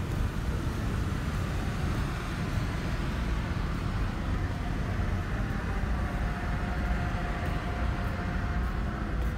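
Wind buffeting the microphone on an open ship's deck: a steady, fluctuating low rumble. A faint steady hum comes in about halfway through.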